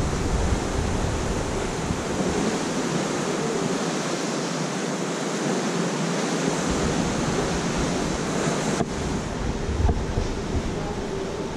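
Steady rush of sea water churning along the cruise ship's side, with wind rumbling on the microphone except for a lull of a few seconds in the middle.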